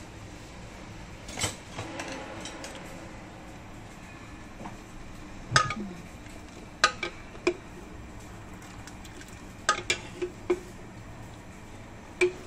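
A metal ladle stirring a large pot of soup, knocking and clinking against the pot's side about nine times at uneven intervals, over a steady low background noise.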